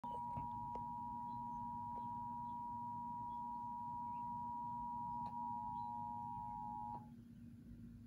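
Emergency Alert System attention signal played through a TV speaker: two steady tones at 853 and 960 Hz sounding together, cutting off suddenly about seven seconds in.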